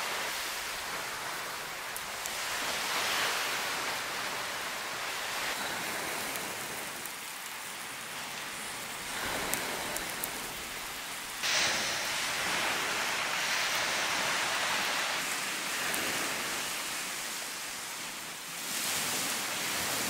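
Surf washing on a beach: a steady hiss that swells and eases every few seconds, with a few faint clicks.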